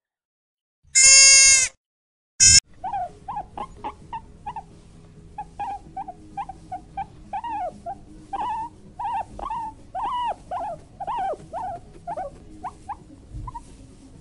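A sheep bleats once, loud and drawn out. After a brief gap, young wild boars give a long run of short, high squeaks, each rising and then falling, about two a second.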